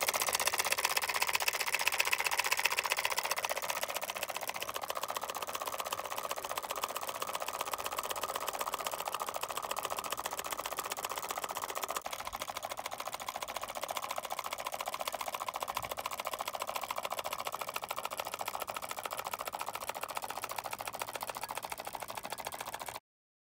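Homemade two-cylinder solenoid engine running fast: a rapid, even clatter of its plungers and switching contacts. It gets a little quieter about halfway through and stops abruptly just before the end.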